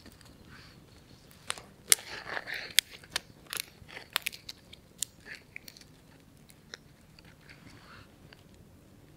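Small wood campfire crackling, with a run of sharp snaps and crunches in the middle as dry twigs are handled and fed into the flames, then only a few faint pops.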